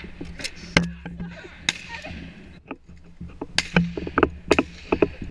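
Irregular sharp cracks and knocks, one to three a second, over a faint low steady hum.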